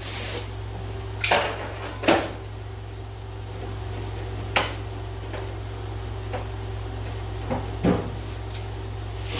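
Scattered clinks and knocks of hand tools and metal parts being handled during suspension work, about six in all, the loudest near two seconds and eight seconds in, over a steady low hum.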